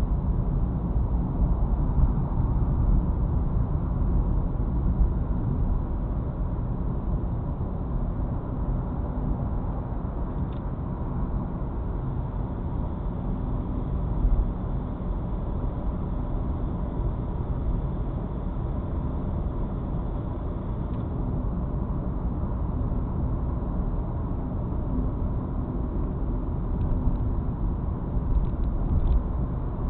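Volkswagen Polo sedan with the CWVA 1.6-litre four-cylinder petrol engine and automatic gearbox driving: steady engine and road noise. A faint thin high tone runs for several seconds midway.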